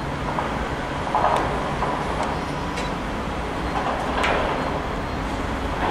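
Railway platform ambience: a steady low rumble with a faint thin hum above it, broken by a few short sharp clicks.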